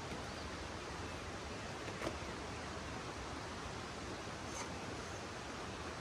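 Steady outdoor rushing hiss, with a single sharp knock about two seconds in and a fainter click a little past the middle.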